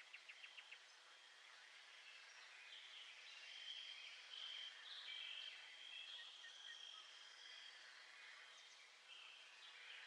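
Faint nature ambience of birds chirping, with a quick run of short high chirps near the start and longer high calls in the middle, over a light background hiss.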